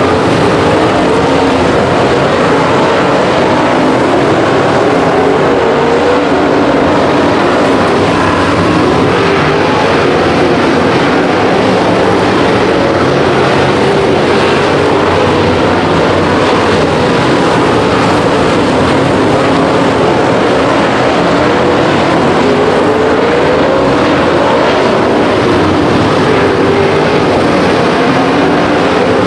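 Several dirt-track race cars running laps at speed, their engines rising and falling in pitch as they go round the oval, very loud and steady.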